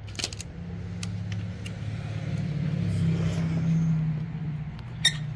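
Tru-Cut sawmill's engine running with a steady low hum that grows louder, peaks, then eases off, with a sharp click just after the start and another near the end.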